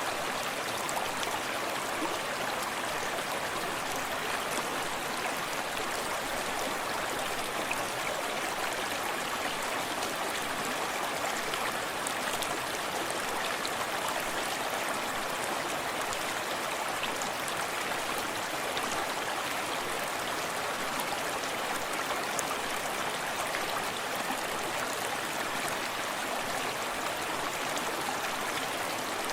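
Forest stream running steadily, water flowing and lapping over stones, with the rush of a small cascade behind it.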